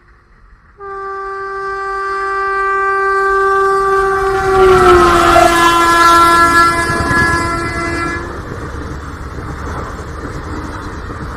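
Train horn sounding one long blast of about seven seconds, starting suddenly near the start and dipping slightly in pitch about halfway, over the rumble of a train running; the rumble goes on after the horn stops.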